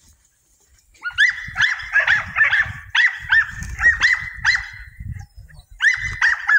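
Young herding dog barking in rapid high-pitched yips, about four a second, while working sheep and goats. The barking starts about a second in, breaks off briefly past the middle and starts again near the end.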